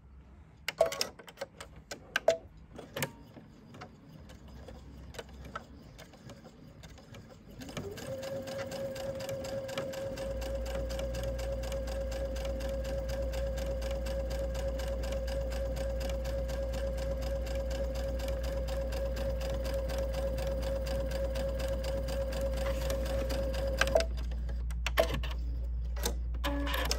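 Domestic sewing machine edge-stitching a folded fabric handle strap: a few sharp clicks, then from about eight seconds in the machine runs at a steady speed for about sixteen seconds and stops abruptly near the end, followed by a few more clicks.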